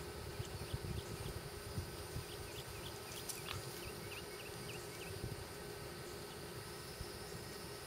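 A small bird chirping a quick run of short high notes for a few seconds, over a steady low outdoor rumble with a few soft thumps near the start.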